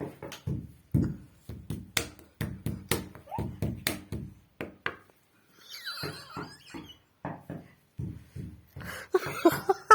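Knocking on a wall: quick runs of dull thuds, about three or four a second, with a short pause a little past the middle.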